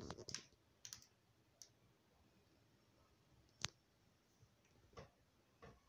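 Near silence: room tone broken by a few faint, sharp clicks and taps, the sharpest about three and a half seconds in.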